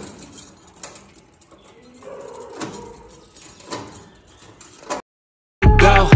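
A key rattling and clicking in a metal gate lock, a few sharp clicks spread over about five seconds. After a moment of dead silence, loud hip hop music with rapping starts near the end.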